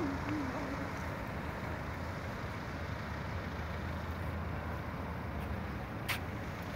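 Steady street ambience: a low rumble of distant road traffic with a faint hiss, and a single sharp click about six seconds in.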